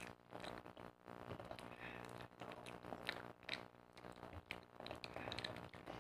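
Faint chewing and mouth sounds of two children eating bananas: soft irregular smacks and small clicks, over a steady low hum.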